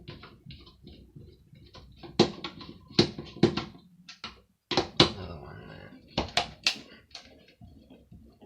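Irregular sharp clicks and knocks of hard parts being handled and set down while a hand dryer is dismantled, one knock ringing briefly.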